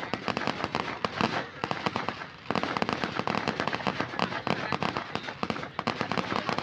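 Fireworks going off as a dense run of rapid, crackling pops, easing briefly about two seconds in and then picking straight back up.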